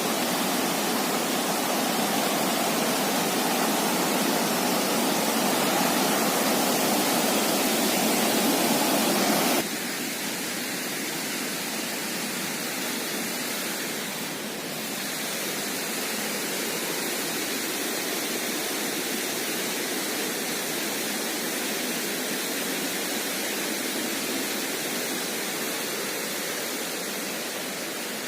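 Steady rushing of a swollen, rain-fed stream at a waterfall. The sound drops suddenly about ten seconds in and then runs on, quieter and thinner.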